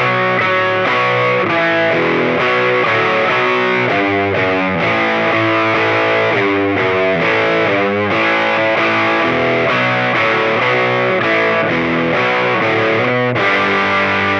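Gibson SG electric guitar played through an overdrive pedal into a Fender Champ amp, giving a distorted tone. It plays a continuous riff of picked notes that changes pitch several times a second.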